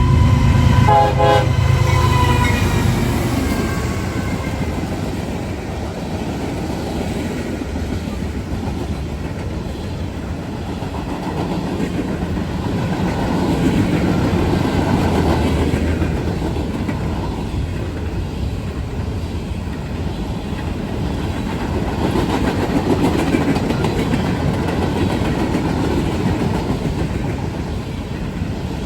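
Freight train passing close by: the diesel locomotives' air horn sounds over a heavy engine rumble in the first few seconds, then a long manifest of freight cars rolls past with the steady rumble and clatter of steel wheels on rail.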